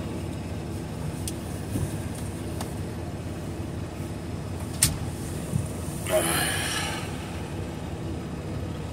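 Semi-truck's diesel engine idling steadily, heard inside the cab. A sharp click comes about five seconds in, and a short noisy burst about a second later.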